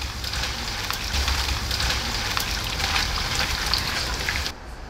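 Food sizzling and crackling as it fries in hot oil, a dense steady crackle that cuts off about four and a half seconds in.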